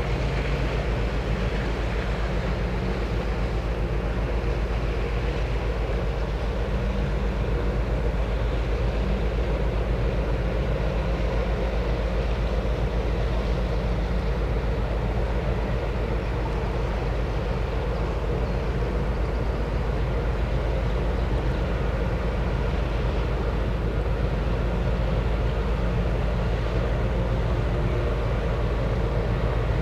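Steady low drone of a large container ship's diesel engine under way, with a constant hum and no change in level.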